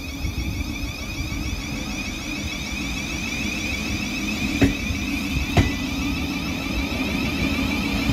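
Thameslink Class 700 Desiro City electric train departing and passing close by: a high electric whine from its traction equipment over a low rumble of wheels on the track, slowly growing louder. Two sharp clicks about halfway through.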